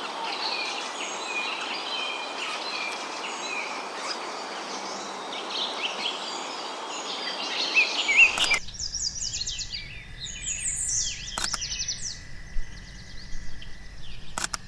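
Birds chirping and calling, densely over a steady background hiss at first. About two-thirds of the way through the sound changes abruptly to sparser, higher-pitched chirps over a faint steady tone, with a couple of short clicks.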